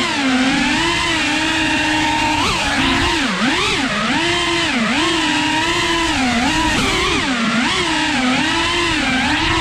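Small FPV drone's motors and propellers whining, the pitch dipping and rising again about once a second as the throttle is worked at low power.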